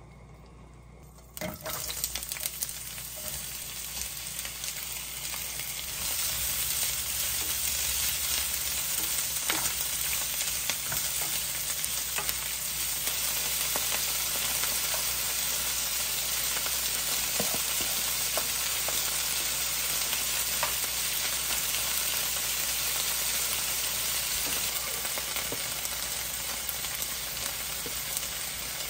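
Food sizzling and crackling in a hot frying pan. It starts suddenly about a second and a half in and grows louder a few seconds later.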